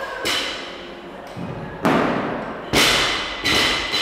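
Loaded barbell with rubber bumper plates dropped on a rubber gym floor: a heavy thud, then a couple of smaller bounces, with the steel bar ringing after them. A lighter knock comes just before, about a third of a second in.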